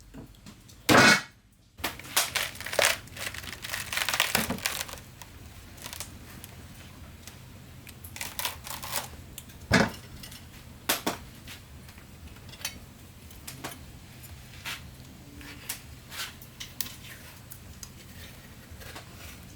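Scattered knocks, clicks and scrapes of objects being handled, over a steady low hum. There is a loud knock about a second in, a busy run of knocks soon after, another strong knock near the middle, and sparser clicks after that.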